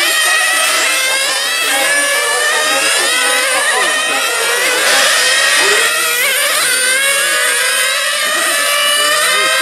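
Several 1/8-scale 4x4 nitro off-road buggies racing, their small two-stroke glow engines giving high, overlapping whines that rise and fall constantly as they rev up and back off through the corners.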